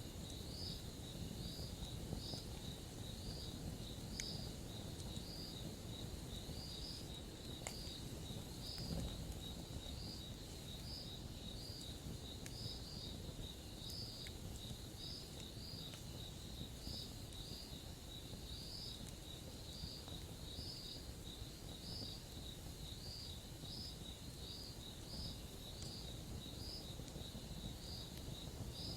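Crickets chirping steadily, a few short chirps a second, over a low, even rumble with a few sharp pops from the campfire.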